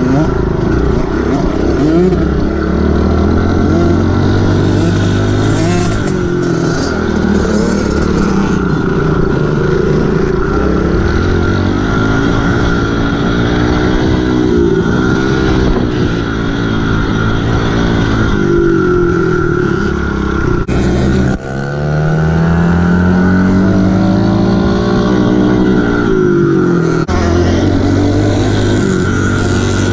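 Kawasaki KLX110 dirt bike's small single-cylinder four-stroke engine running under throttle, its revs rising and falling over and over as it is ridden, heard close from the handlebars. About two-thirds through the sound dips briefly, then the revs climb again.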